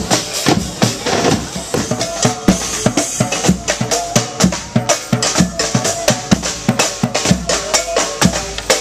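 Street drum troupe playing a fast, driving rhythm: dense rapid drum strikes several times a second with deeper bass drum beats underneath.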